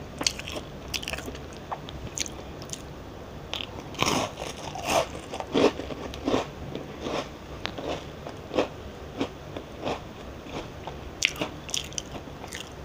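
Crunching of a homemade lemon cookie, close to the microphone: a bite about four seconds in, then a quick run of crisp crunches as it is chewed, with more scattered crunches near the end.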